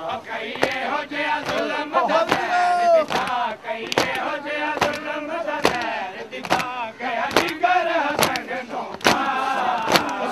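A crowd of men chanting and shouting together, over sharp rhythmic slaps about once a second from mourners beating their chests (matam).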